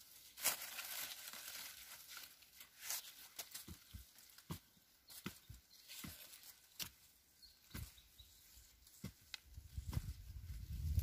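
Hands and a short digging tool scraping and scooping loose soil around an ube (purple yam) tuber: faint, irregular scrapes, crumbles and small knocks. A low rumble comes in near the end.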